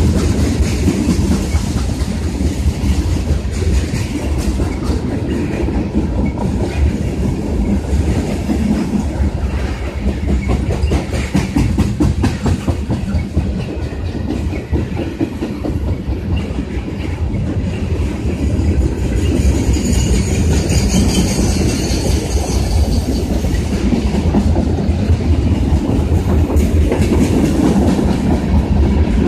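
Freight train cars rolling past close by, tank cars and lumber-laden centerbeam flatcars, with a steady rumble and a rapid clickety-clack of wheels over the rail joints.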